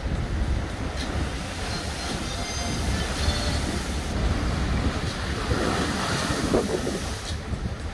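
Storm surf crashing against a sea wall, with strong wind buffeting the microphone. A big wave breaks about five and a half seconds in, and its spray hisses down for a second or two.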